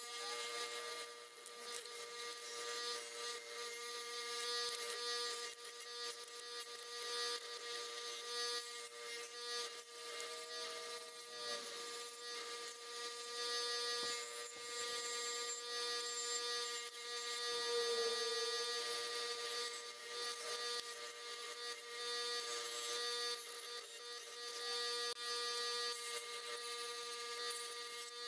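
Bench grinder's wire wheel scrubbing rust and paint off the steel sheet metal of a Kohler engine's flywheel cover. The audio is sped up eightfold, so the motor comes through as a steady high-pitched whine over a scratchy hiss of wire on metal.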